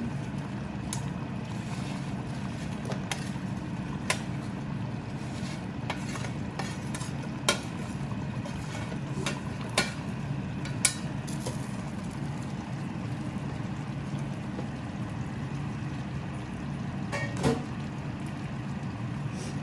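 Metal spoon knocking and scraping against a cooking pot now and then as fried potato and brinjal pieces are stirred into a simmering coconut-milk curry gravy, about eight sharp clinks over a steady low hum.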